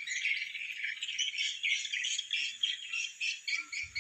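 A continuous outdoor chorus of high chirping from small wild creatures: short calls repeating several times a second without a break.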